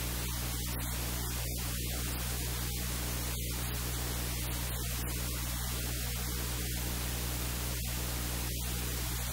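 Steady electrical hiss with a low, even hum underneath, like static on the audio line; no voice comes through.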